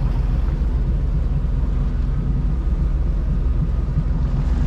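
Motorboat engine running steadily underway, a constant low hum.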